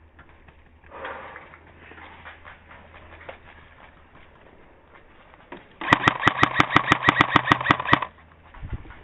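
Airsoft electric gun firing a full-auto burst of about two seconds, a fast run of sharp cracks over the steady whir of its gearbox motor, starting about six seconds in.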